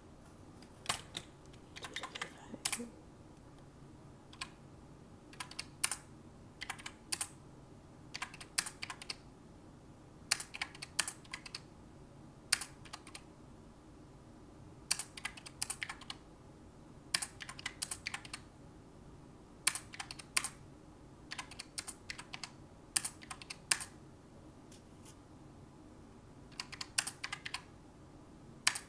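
Calculator keys being pressed in quick, irregular runs of clicks with short pauses, as a column of budget amounts is added up.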